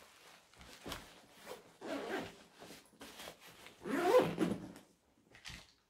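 Zipper on a fabric diaper backpack being pulled in a series of short strokes, with the bag's fabric rustling; the loudest pull comes about four seconds in.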